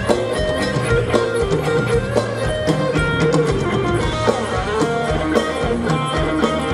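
Live band playing instrumental Thai ramwong dance music, with a guitar melody over a steady beat.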